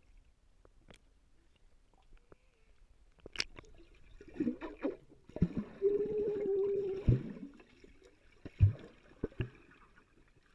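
Muffled underwater pool sounds, heard below the surface: scattered knocks, bubbling and gurgles as swimmers move and breathe out underwater. A little past the middle, a child hums or calls out underwater, one steady held tone for about a second and a half amid a rush of bubbles.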